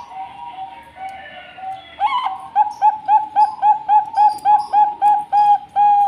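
Bangkok-strain zebra dove (perkutut) singing: a few soft coos, then about two seconds in a loud, fast series of short staccato coos, about five a second, ending in one longer held note.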